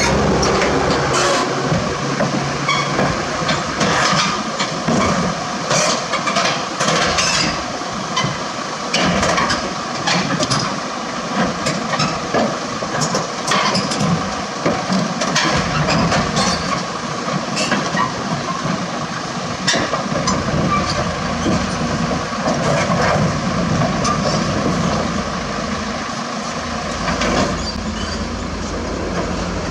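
Steel tie-down chains clanking and rattling against a truck's steel deck as an excavator is chained down, with many irregular sharp metallic knocks. An engine runs low underneath, heavier in the second half.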